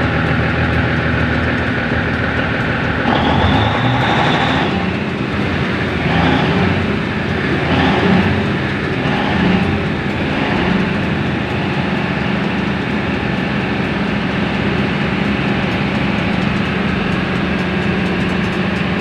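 Diesel engine of a 500 kVA Powercity generator set running up from idle at about 840 RPM to its rated 1800 RPM, with a few rising swells in speed before it settles into a steady drone. It reaches a steady 230 V output after its crankshaft oil seal was replaced.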